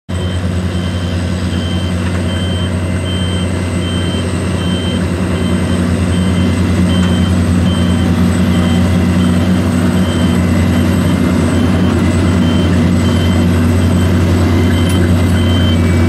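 Dewulf RA 3060 self-propelled potato harvester running steadily under load as it lifts potatoes, its diesel engine humming low and growing a little louder over the first half. A high beeper sounds about every two-thirds of a second.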